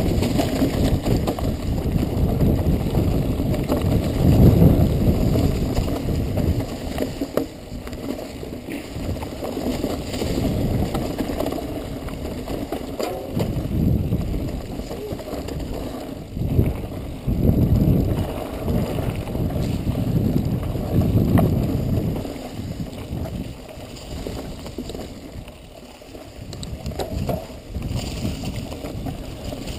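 Wind rushing over the camera microphone and the low rumble of a mountain bike rolling fast down a rough dirt trail, surging and easing with the terrain and dipping briefly a few seconds before the end.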